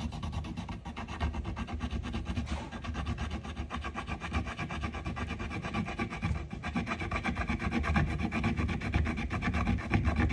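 A hot steam iron's soleplate is rubbed back and forth against a dishwasher tablet, making a continuous rasping scrape of quick, close-set strokes. The tablet is grinding away black hard-water residue baked onto the plate.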